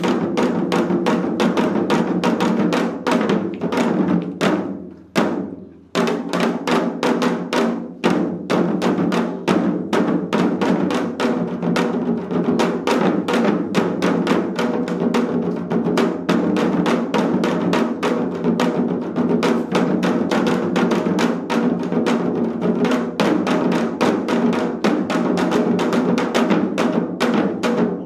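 Korean janggu hourglass drums played as an ensemble in a seoljanggu piece: fast, dense stick strokes, with the drumming dying away briefly about five seconds in before it picks up again.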